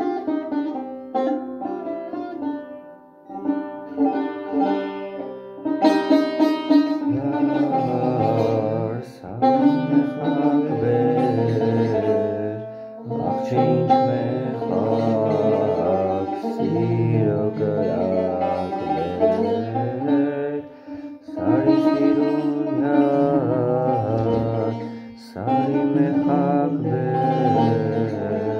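A tar, the long-necked lute with a skin-topped double-bowl body, played with a plectrum in a fast run of plucked melodic notes. About seven seconds in, a low male voice begins singing along with it, with brief pauses between phrases.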